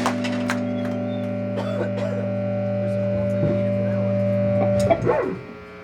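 Electric guitar chord left ringing out steadily through the amplifier after the song's final hit, then choked off about five seconds in with a short scrape, leaving only amplifier hum.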